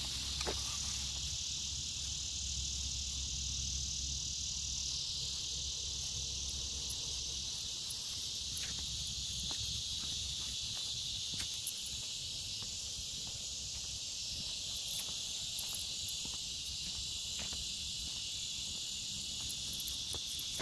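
Steady outdoor chorus of crickets and other insects, a high, even chirring that never lets up. A low hum underneath fades out about a third of the way in, and a few faint ticks come and go.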